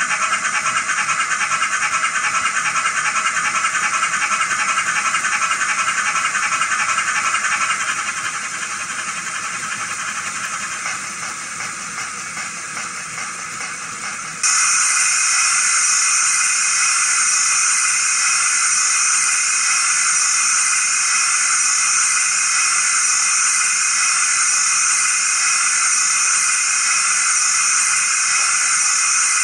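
Digital sound decoder in a Bachmann GWR prairie tank model playing steam locomotive sounds through its small speaker: a rapid rhythmic chuffing that fades away, then about halfway through a loud, steady steam hiss cuts in suddenly and holds.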